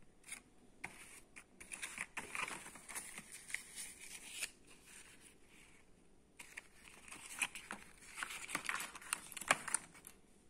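Thin cardboard box being torn open and crinkled by hand, in two bouts of rustling and tearing full of sharp crackles with a short pause between.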